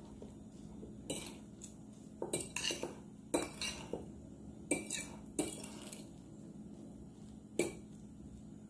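A metal fork stirring oats and beaten egg in a ceramic bowl, clinking and scraping against the bowl in irregular taps, with a lull in the second half before one last clink.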